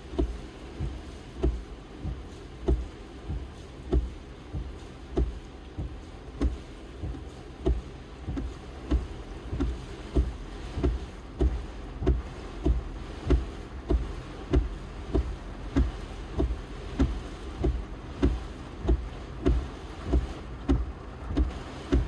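Car windshield wipers sweeping back and forth across a rain-soaked windshield, with a low thump at each end of the stroke about one and a half times a second. Steady rain noise on the glass and body of the car lies underneath.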